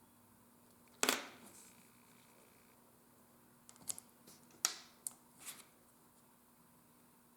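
Leatherworking tools being handled at a workbench: a sharp knock about a second in, then a cluster of light clicks and taps around the middle.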